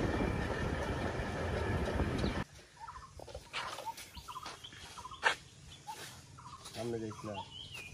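Wind buffeting and engine noise from riding in the open back of a moving vehicle, cut off suddenly after about two and a half seconds. After it comes a much quieter outdoor stretch with scattered short bird calls and a few clicks.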